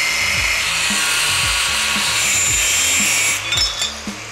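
Angle grinder disc cutting into steel, a loud steady grinding hiss with a high whine, which stops about three and a half seconds in. Background music with a steady beat underneath.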